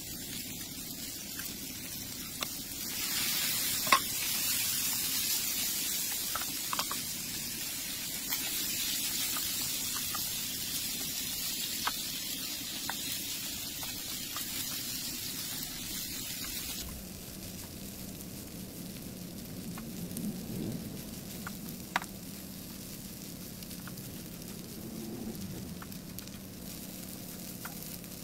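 Shrimp, squid and rice stir-frying in a hot nonstick pan: a steady sizzle, louder from about three seconds in, that drops away sharply about two-thirds of the way through. A few sharp clicks of the spatula against the pan come through it.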